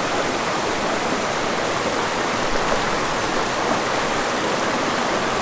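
Small, fast mountain creek rushing over rocks, riffles and small cascades: a steady, even rush of water.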